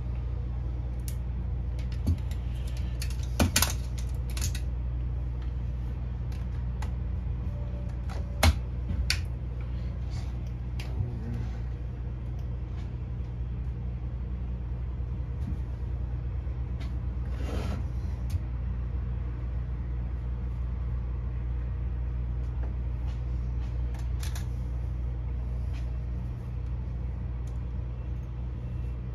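Scattered clicks and light knocks from handling fiber-splicing tools and the fusion splicer, over a steady low hum. The loudest click comes about a third of the way in, and there is one short rasp a little past halfway.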